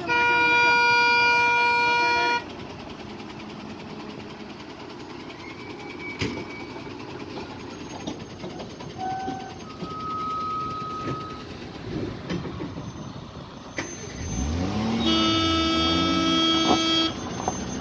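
Truck horns blaring in slow highway traffic: a long steady horn for the first two seconds or so, then traffic rumble with a couple of short faint toots, then a second, lower-pitched horn about fifteen seconds in, sounded over a truck engine revving up and down.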